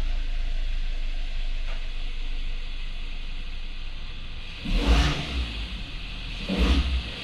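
Maruti Ciaz four-cylinder petrol engine idling steadily just after a start, then revved in two short blips, the first about four and a half seconds in and the second near the end.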